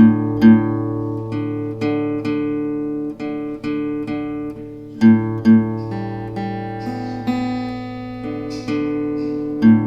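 Background instrumental music: plucked-string notes picked in a steady rhythm.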